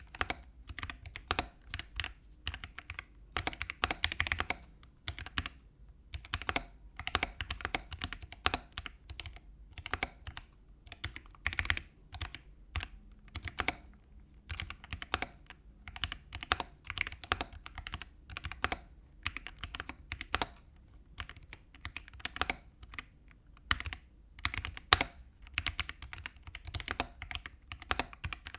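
Typing on a mechanical keyboard fitted with Akko Starfish linear switches: an uneven run of quick keystroke clacks, broken by short pauses.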